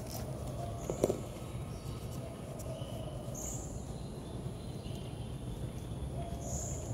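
Outdoor ambience: a steady low hum with short high bird chirps heard a few times, and a single sharp knock about a second in.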